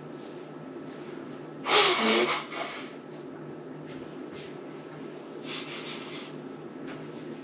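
A person blowing their nose off-camera: one loud blow just under a second long about two seconds in, over a steady low hum.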